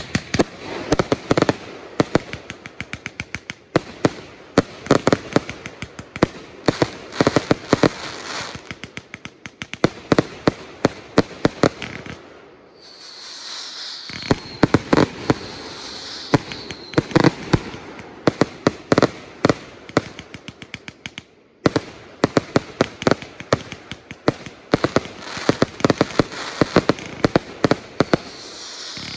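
A 180-shot "Under Lock & Key" fireworks cake firing shot after shot in rapid succession: a dense run of launch thumps and popping, crackling bursts, several a second. About halfway through it stops for a moment under a hiss, then resumes.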